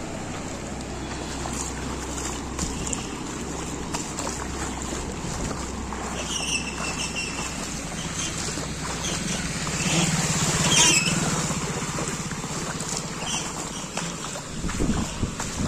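Motor vehicle engines running as vehicles drive through floodwater, with water splashing and sloshing around the wheels. The engine sound swells about ten seconds in.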